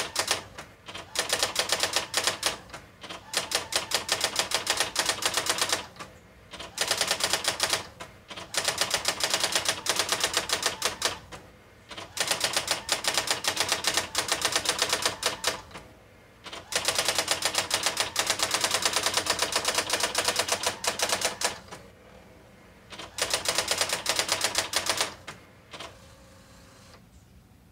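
Brother GX-6750 electronic typewriter printing by itself in its self-demo mode: rapid runs of print strikes, broken by short pauses, stopping about two seconds before the end.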